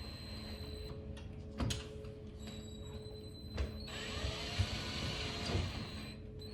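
A few sharp knocks, then about two seconds of a power drill running into the wall, with more knocks during the drilling.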